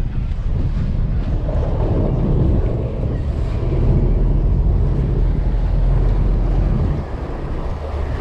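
Wind buffeting the microphone aboard a charter fishing boat: a loud low rumble that swells in the middle and eases about seven seconds in.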